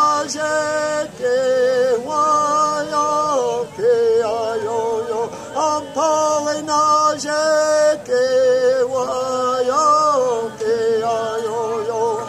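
A man singing a Mohawk song solo and unaccompanied, in long held notes with a wavering pitch, broken into phrases by short pauses.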